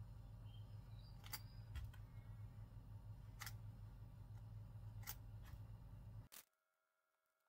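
Near silence: a low steady hum with a few faint, sharp clicks of small handling sounds. All of it cuts off abruptly about six seconds in.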